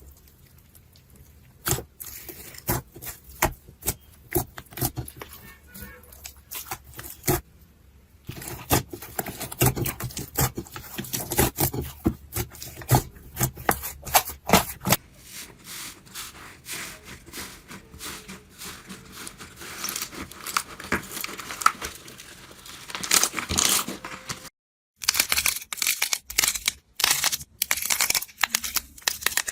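Slime being handled, pressed and poked, giving runs of sharp pops, clicks and crackling squelches.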